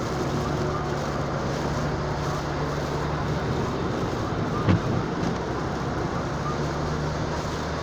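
Steady road and engine noise heard from inside a car driving on the highway, with a low, even hum under the tyre noise. A single short knock about four and a half seconds in.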